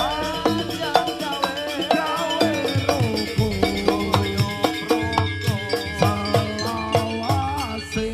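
Jaranan dance music: rapid drum and mallet-percussion strokes under a melody that slides and bends in pitch.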